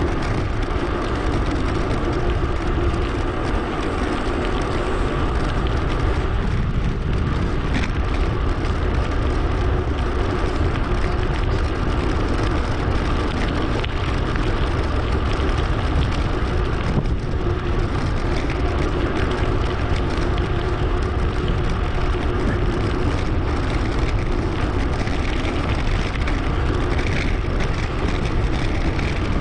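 Steady wind and rolling noise from an action camera mounted on a bicycle in motion, sped up 2.5 times.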